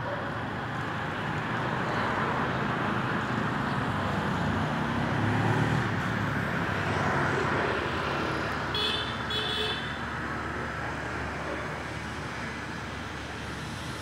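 Road traffic going by, one vehicle passing loudest near the middle, with two short high beeps about nine seconds in.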